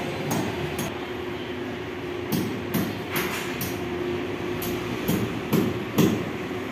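Construction site noise: a steady machine hum with a run of sharp knocks, about two a second, starting a little over two seconds in and loudest near the end, like hammering.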